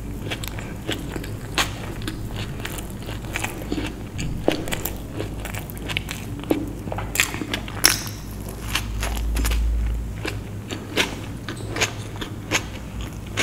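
Close-miked chewing of a full mouthful of food with the lips closed, with many sharp, irregular wet mouth clicks and smacks, and a dull low rumble about nine seconds in.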